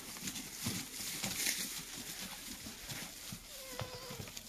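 Young goats shuffling about on straw bedding: rustling and small hoof knocks, with one faint short bleat near the end.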